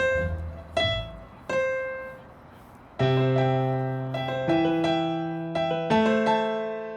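Piano played: three single notes struck and left to ring out, a short hush, then from about three seconds in full chords with bass notes changing steadily.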